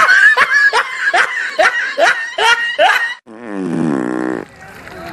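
A person laughing in quick repeated bursts, then, about three seconds in, a buzzy prank fart noise lasting about a second that slides down in pitch.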